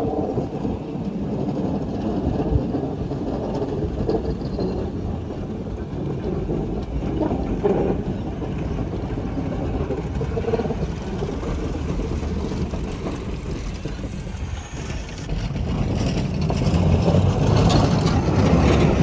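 Low, steady rumble of a train, growing louder in the last few seconds.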